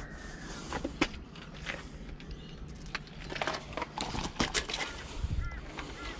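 Scattered knocks and splashes as a barramundi is lifted by the line out of the water and swings against concrete steps. A bird gives a few short chirps near the end.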